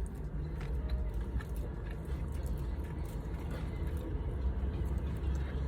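Low, steady rumble heard inside a car, with a few faint clicks and taps.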